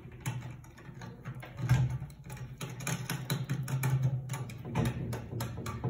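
A hand working parts on a ceramic toilet: a run of small clicks and taps, over an on-and-off low hum.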